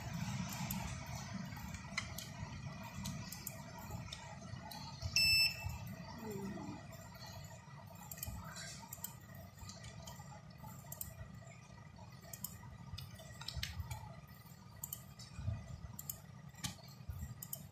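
Quiet room hum with scattered light clicks and one short electronic beep, two high tones together, about five seconds in.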